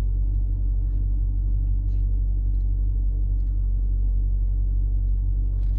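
2018 Dodge Durango SRT's 6.4-litre Hemi V8 running steadily with a low, even rumble as the SUV pulls in.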